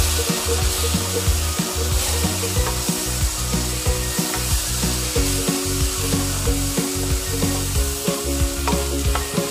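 Black plastic spoon stirring and scraping raw washed rice and browned vermicelli around a stainless steel pot, a quick irregular series of scrapes, over a steady hum.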